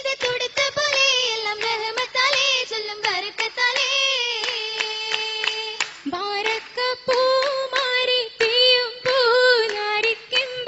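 Girls' voices singing a Malayalam Mappila song for an oppana, long wavering melodic lines, with sharp hand claps falling in time. The singing briefly drops out about six seconds in.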